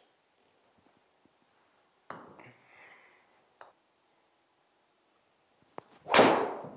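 Golf driver striking a ball off a hitting mat: one sharp, loud impact near the end that trails off quickly. A few fainter knocks and clicks come earlier.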